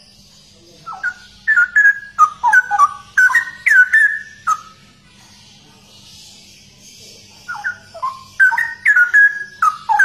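Straw-headed bulbul (cucak rowo) singing: two phrases of loud, rich, quickly gliding whistled notes. The first runs from about one second in for some three and a half seconds; the second begins about two and a half seconds before the end.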